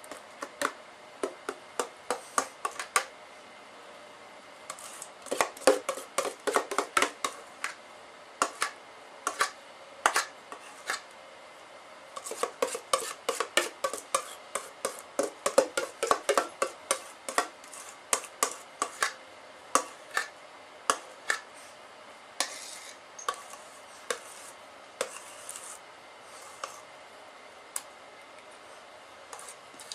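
Metal spoon scraping and clinking against a stainless steel mixing bowl while scooping out thick chocolate pudding filling: irregular runs of quick, sharp taps with short pauses between.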